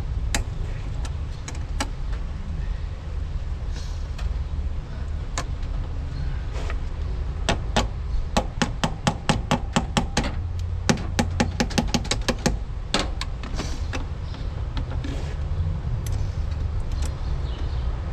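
Hand tools clicking against metal while a battery terminal is worked on, with scattered sharp clicks and, in the middle, a quick even run of about four clicks a second. Under it runs a steady low rumble.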